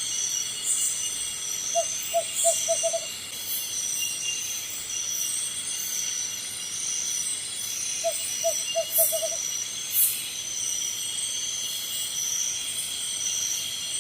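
Tropical forest ambience: a steady, high-pitched insect chorus, broken twice by a quick run of five or six short hooting notes, about two seconds in and again about eight seconds in.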